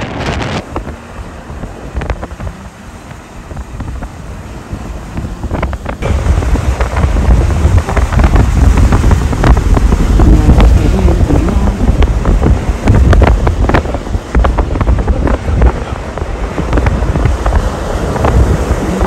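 Strong gusty storm wind buffeting the microphone, with a deep rumble that grows much louder about six seconds in and sharp gusts hitting throughout.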